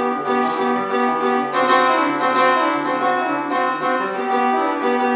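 Background music with piano and a repeating bass figure.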